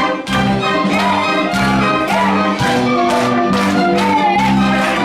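Symphony orchestra playing an instrumental passage, strings carrying a melody with vibrato over held chords, with a steady beat of about two accents a second.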